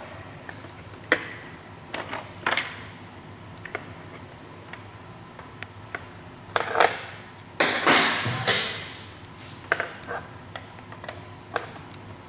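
Metal hand tools clinking and knocking as wrenches are handled and fitted onto the steering damper's mounting bolts. The sound comes as scattered clicks, with a louder, longer clatter about eight seconds in.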